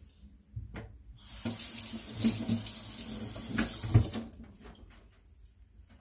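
Water running from a kitchen tap for about three seconds, a steady rushing hiss with a few light knocks near the end, then stopping.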